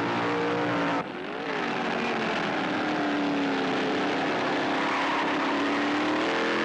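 Formula 5000 race cars' Chevrolet V8 engines running hard on track, the engine note gliding up and down as the cars go by. The sound breaks off abruptly about a second in and picks up again with the next cars passing.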